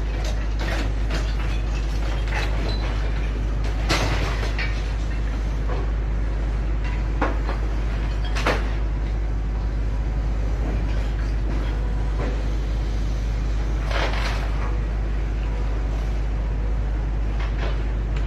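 A steady, heavy low rumble like a running engine or vehicle, with scattered sharp clicks and knocks, the clearest about 4, 8½ and 14 seconds in.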